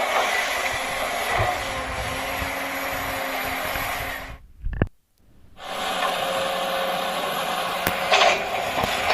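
Small electric motor and gears of a toy RC construction vehicle whirring steadily. It cuts out for about a second halfway through, with a click, then runs again.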